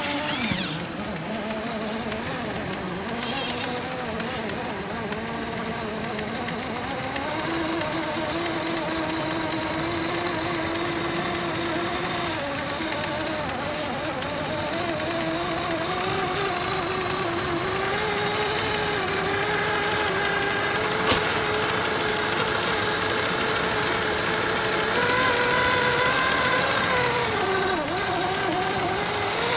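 Radio-controlled Axial SCX10 III Jeep CJ-7 crawler's electric motor and gears whining under load as it climbs rock, the pitch wavering with the throttle and rising higher as it goes, then dipping near the end. One sharp click about two-thirds of the way through.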